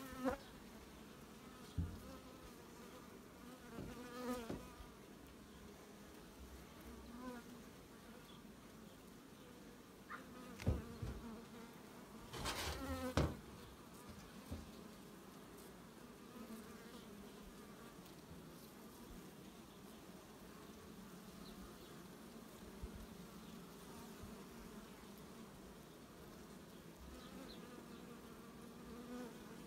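Carpathian honey bees buzzing steadily around an opened hive. A few short, louder sounds stand out, the loudest about 11 and 13 seconds in.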